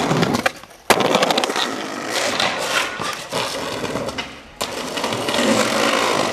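Skateboard wheels rolling over stone paving with a steady hiss. About four and a half seconds in, the board comes down on a concrete ledge with a sharp knock, and the trucks grind along it until near the end.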